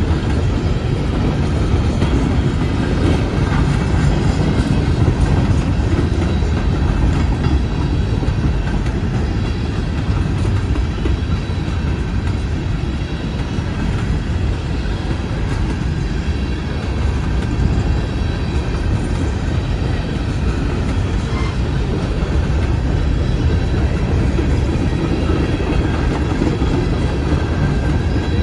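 Empty steel-wheeled coal gondolas of a freight train rolling past, with a steady rumble of wheels on the rails.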